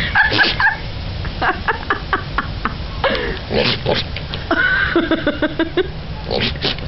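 A goat bleating in several drawn-out, wavering calls, with a run of short clicks between the first calls.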